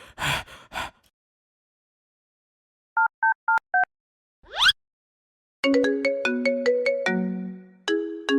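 Mobile phone ringtone: four short beeps alternating between two pitches, a quick rising swoop, then a melody of plucked-sounding electronic notes.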